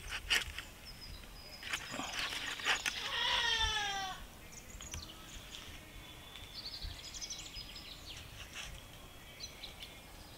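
A single drawn-out animal cry, falling in pitch and lasting about a second, around three seconds in, with short high chirps scattered through the rest.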